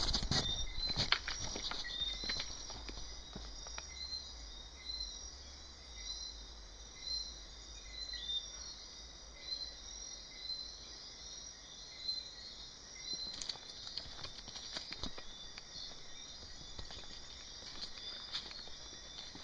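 Night insects chirping in a steady high chorus, with a short chirp repeating evenly throughout. A few clicks sound near the start.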